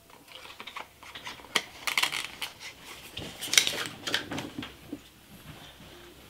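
Small glass dropper bottle and its paper box being handled and set down on a desk: scattered sharp clinks and clicks with some rustling, the loudest clink about three and a half seconds in, dying away near the end.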